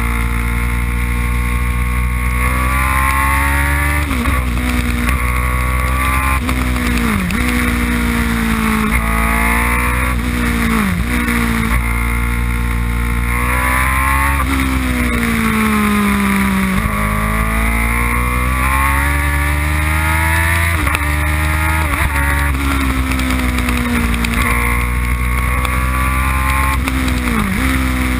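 Open-cockpit race car engine heard from on board, revving up through the gears: the pitch climbs and then drops sharply at each upshift, several times. Around the middle the revs fall away for a couple of seconds as the car slows for a bend, then climb again under acceleration.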